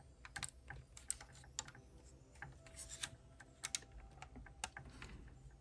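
Faint, irregular light clicks of hard clear plastic crystal-puzzle pieces as a plastic pole is tightened into the puzzle's hull.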